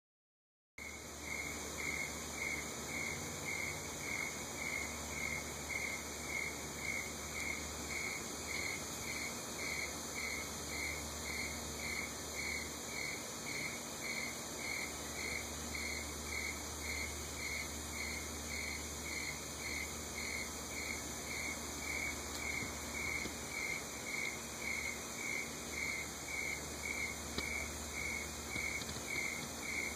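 A cricket chirping in a steady rhythm, about two high-pitched chirps a second, over a steady high hiss.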